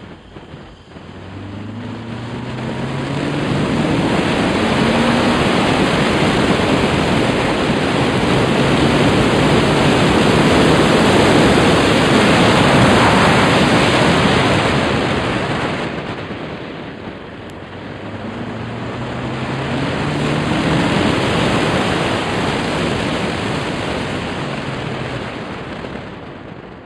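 Car being driven hard, heard from on board: the engine note climbs as it accelerates, under a loud rushing of wind and road noise. The noise eases off in the middle, then a second acceleration climbs again and fades near the end.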